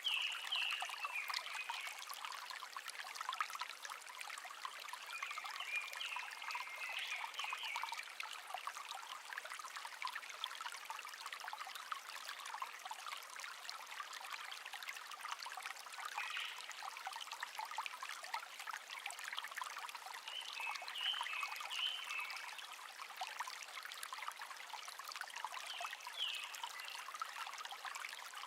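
Shallow brook babbling and trickling steadily, with a wild songbird singing short high phrases every few seconds, about five times.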